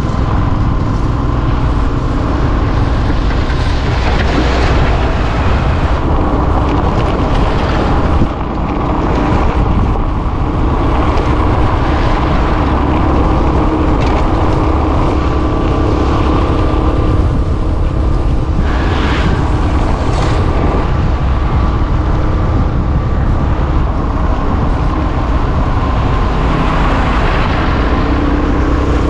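Motorcycle engine running steadily while riding, with heavy wind noise on the microphone. A faint engine hum shifts a little in pitch now and then.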